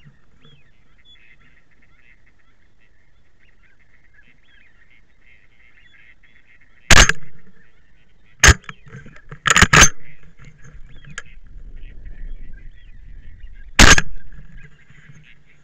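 Five loud gunshots with short echoing tails: one, another about a second and a half later, a quick pair about a second after that, and a last one some four seconds on. Waterfowl call faintly throughout.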